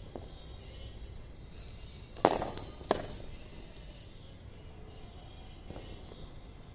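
Two sharp knocks of a cricket ball striking in the practice net about two seconds in, a little over half a second apart, the first the louder.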